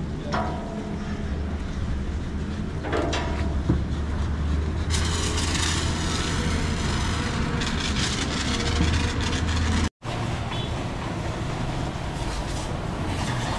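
Steady low machine hum, with a broad rushing hiss joining it about five seconds in; the sound cuts out for an instant about ten seconds in.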